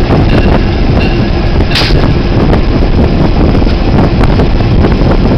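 Locomotive rolling along the track, heard from its cab: a loud, steady rumble of the engine and wheels, with scattered clicks from the rails and a brief hiss about two seconds in.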